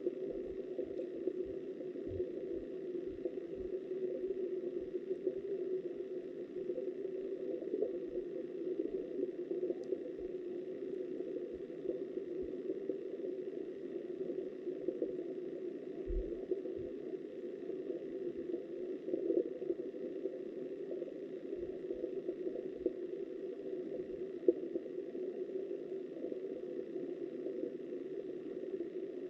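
Muffled, steady rush of flowing river water heard underwater through a submerged camera, with scattered soft low bumps.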